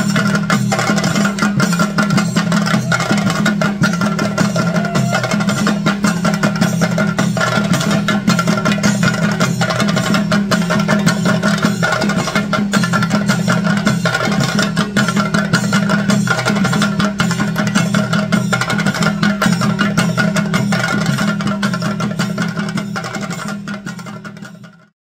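Chenda drum ensemble playing fast, dense stick strokes over a steady held tone, fading out near the end.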